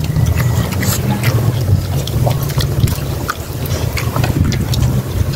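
Close sounds of people eating with their hands: scattered short clicks and smacks of chewing and lips. A steady low rumble runs underneath.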